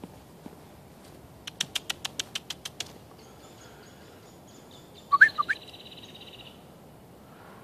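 Wild birds calling in the woods: a quick run of about ten sharp notes, then a high trill, with three loud short rising chirps about five seconds in.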